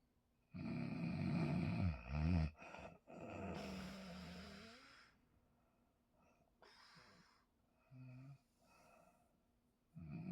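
A person snoring loudly in sleep: a long, low, rattling snore on the in-breath that wavers in pitch at its end, then a long breath out, a few faint breaths, and another snore near the end.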